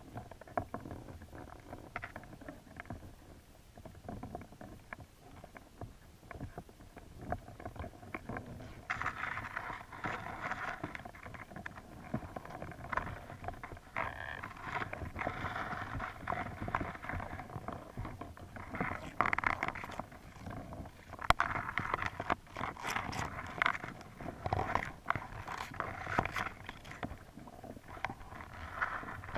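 Underwater sound picked up by a GoPro in its waterproof housing: a muffled wash of water with irregular small knocks and scrapes, growing busier about a third of the way in.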